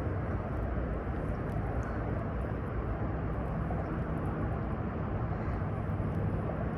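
Steady outdoor background rumble and hiss, with no distinct events.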